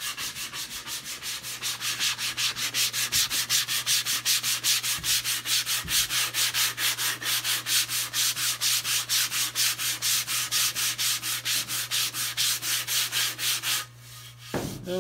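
Sandpaper on a sanding block rubbing back and forth over a wooden half-hull model, in even rasping strokes about four a second, stopping shortly before the end. A steady low hum runs underneath, and a knock or two follow the sanding.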